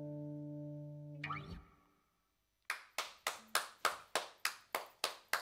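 Final chord of a Telecaster-style electric guitar ringing out and fading, then damped with a short scrape about a second in. After a brief silence, steady clapping at about three claps a second.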